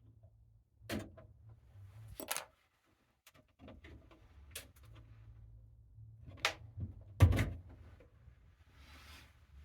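Scattered clicks and knocks of hand work on a wall thermostat and its wiring, the loudest a thump about seven seconds in, over a low steady hum.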